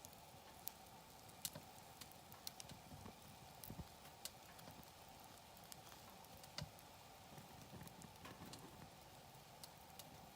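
Wood campfire crackling, with irregular sharp snaps and pops over a faint steady background.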